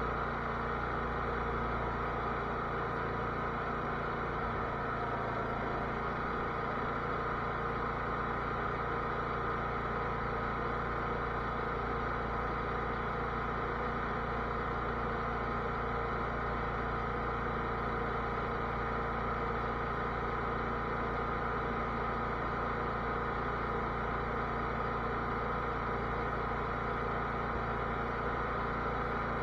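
Cub Cadet lawn tractor's engine running steadily at an even speed.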